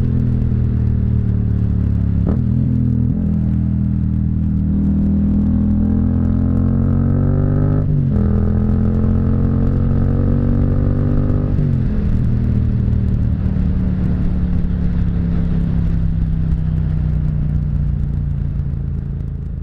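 Yamaha MT-07's parallel-twin engine pulling up through the gears: the pitch rises steadily, with brief breaks for gear changes about two, eight and twelve seconds in. After the last shift it settles into a steady cruise, then fades out near the end.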